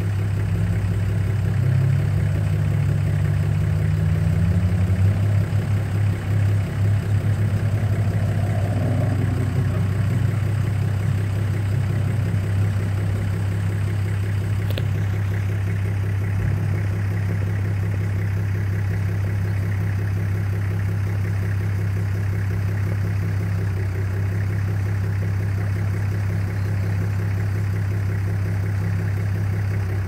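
Four-wheel-drive vehicle's engine idling with a steady low hum, its pitch rising slightly in the first few seconds. A single sharp click comes about halfway through.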